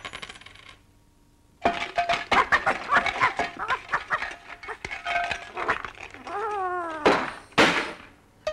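Cartoon sound effects: a long run of rapid clinking and clattering, starting after a brief quiet about a second in. Near the end come a falling, pitched whine and a short hissing rush.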